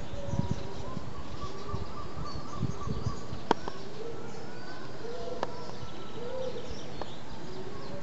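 Adult gull and its downy chicks calling softly: a run of short rising-and-falling calls, with a thin, wavering higher call in the first couple of seconds. A few sharp clicks sound in the middle and later part.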